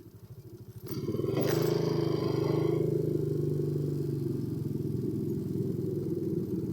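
Motorcycle engine running, quiet for the first second and then getting much louder about a second in, with a burst of hiss that fades over the next second or so before it settles into a steady run.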